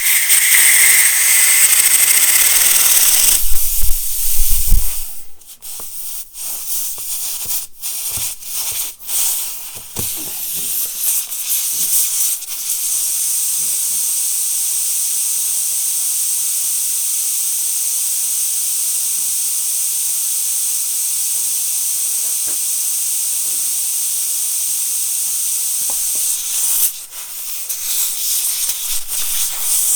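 Air hissing out of a punctured tire around a plug-kit reamer being forced into the hole. A few thumps and knocks from handling the tool break up the hiss several seconds in, then it runs steady.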